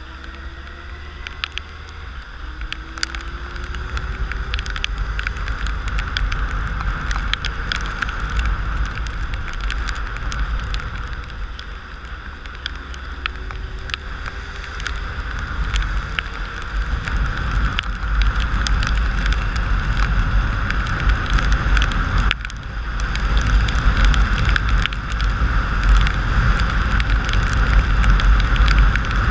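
Motorcycle ridden on wet roads in the rain, heard from a helmet-side camera: steady wind rush and a low engine rumble, with raindrops ticking on the camera. The engine rises in pitch twice as it pulls away, and the noise dips briefly and then grows louder as speed picks up toward the end.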